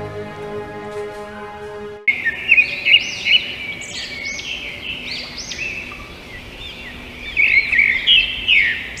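Soft background music with long held notes, ending suddenly about two seconds in. Then many birds chirping at once, with quick overlapping high chirps.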